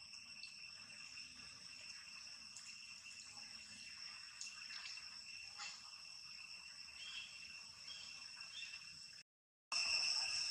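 A steady, high-pitched drone of insects, held on two even tones. About nine seconds in it cuts out for half a second, then returns louder.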